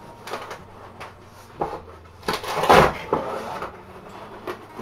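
Cardboard parcel box being wrenched and torn open by hand: irregular scraping and tearing of cardboard, loudest between about two and three seconds in.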